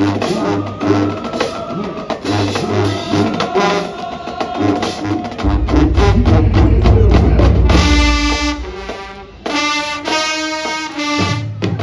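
High school marching band playing: drums beat a steady rhythm under the brass, then the full horn line comes in with loud, held brass chords about two-thirds of the way through, cut off and restruck a few times.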